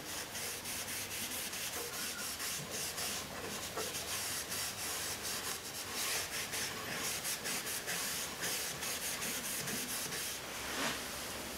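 Cloth applicator pad wiping oil-based finish onto bare cherry and maple, a steady scrubbing rub of cloth on wood in repeated short strokes.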